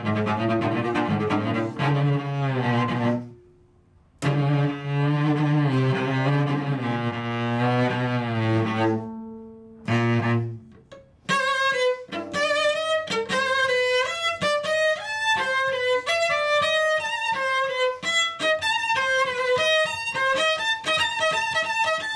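Solo cello, bowed: low, sustained double-stopped notes broken by two short pauses, then from about eleven seconds a quick run of many short, higher notes.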